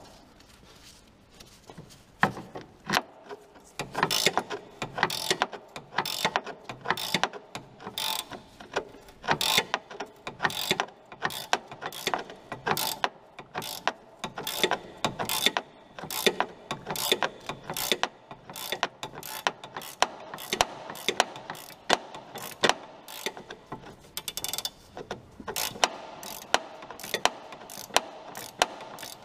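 Ratchet spanner clicking in quick, repeated strokes as it turns the lower nut of the Fiat Bravo's anti-roll bar drop link, starting about two seconds in.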